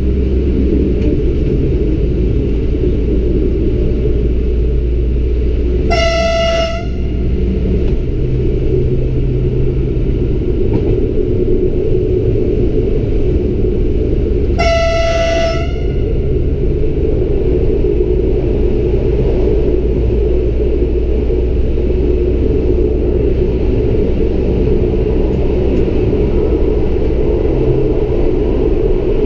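Lint 41 diesel railcar running steadily along the track, heard from inside the driver's cab with a constant low running rumble. Its horn sounds twice: a short blast about six seconds in and a slightly longer one about nine seconds later.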